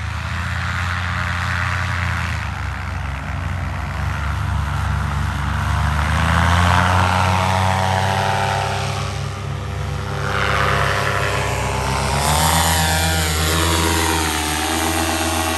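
Paramotor engines and propellers running at flying power, the buzzing drone rising and falling in pitch as the powered paragliders fly close past.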